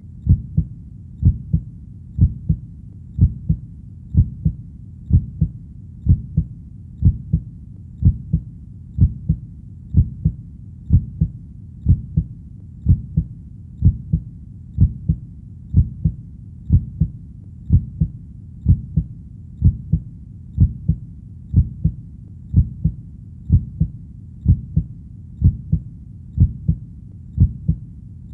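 Heartbeat: a steady, slow rhythm of low double thumps, about one beat a second, over a faint low background hum.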